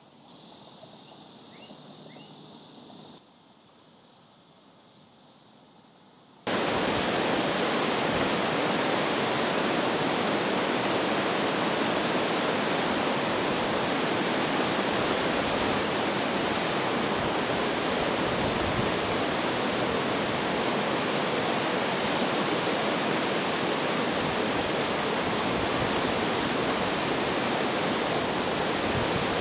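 Muddy floodwater pouring over a dam spillway, a loud steady rushing that starts suddenly about six seconds in after a quieter stretch. The spillway is running high after heavy rain.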